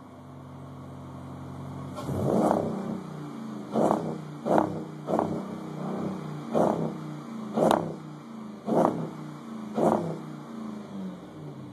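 2008 Jeep Grand Cherokee SRT8's 6.1-litre Hemi V8, breathing through a Magnaflow muffler with the resonator deleted, idling for about two seconds. It then revs in a series of quick throttle blips, about one a second, each rising and dropping back.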